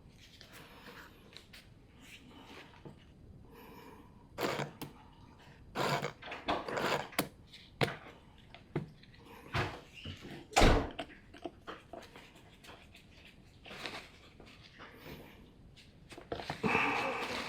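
Scattered knocks and clatter of chainsaw parts and tools being handled, with one sharp loud thump about ten seconds in and a short scraping rustle near the end.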